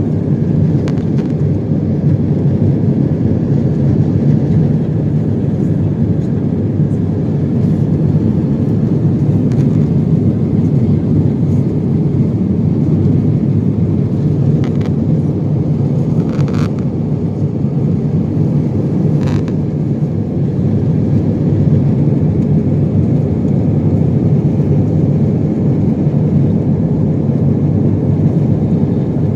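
Steady low drone of an airliner cabin in flight: engine and airflow noise. Two brief faint sounds come just past the middle.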